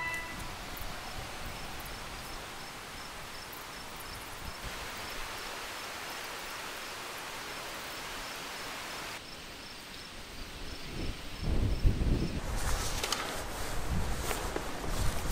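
A steady outdoor hiss with an insect chirping in an even rhythm, a few times a second. About nine seconds in this gives way to wind buffeting the microphone, with rustling and clicks as a backpack is handled at a car door.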